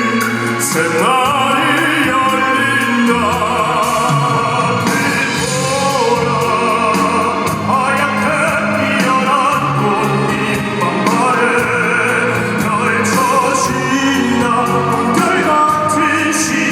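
Crossover vocal group singing in an operatic style, the voices held with wide vibrato over instrumental accompaniment.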